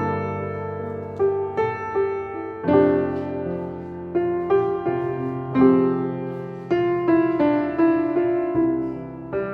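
Background music: soft solo piano playing a gentle melody over sustained chords, each note struck and then fading.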